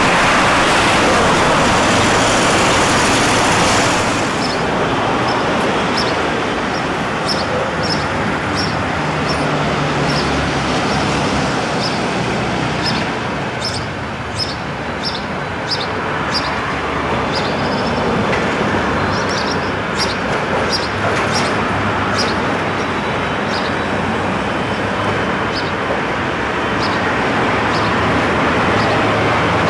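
A car passes close by with a loud rush for the first few seconds. Then a 1950s ex-Vestische tram moves slowly around the depot yard's curved track, running with a steady low hum and many short, high clicks.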